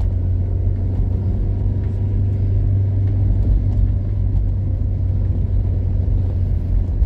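Steady low engine and road rumble heard from inside a moving vehicle.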